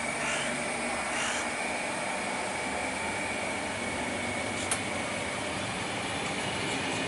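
Corail passenger coaches rolling past on the rails: a steady rushing of wheels on track with a faint high whine running through it, and a single sharp click about four and a half seconds in.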